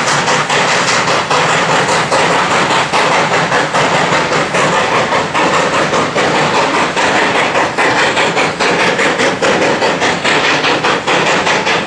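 Steam locomotive 218A working up the grade, its exhaust beating in an even, rapid rhythm of sharp chuffs, about three a second.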